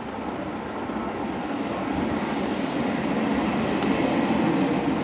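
A passing vehicle's steady rumble that slowly grows louder, with a couple of faint clicks near the end.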